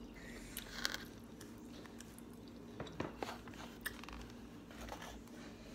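Faint eating sounds: chewing, with a few soft clicks of a metal fork picking at food in a foam takeout container.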